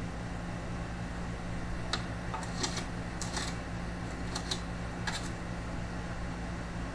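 A scatter of light clicks and taps from handling the opened desktop computer case, most of them between about two and five seconds in, over a steady low hum.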